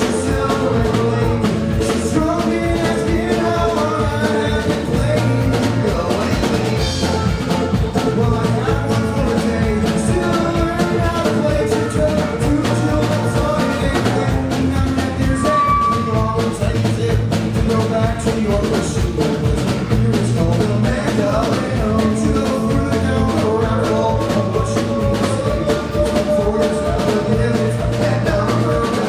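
Live rock band playing loud and steady, with a drum kit beating out a fast even rhythm under guitars and bass, and singing in places.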